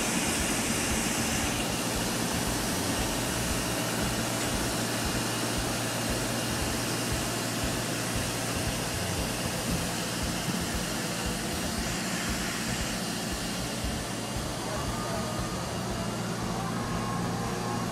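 Mobile crane's diesel engine running steadily under load while hoisting a precast concrete wall panel, a constant low hum under a broad rushing noise.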